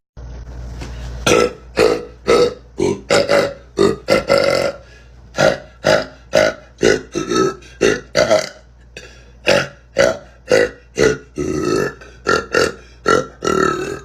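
A young woman burping over and over: a long run of short, repeated burps about two a second, with a pause of about a second partway through.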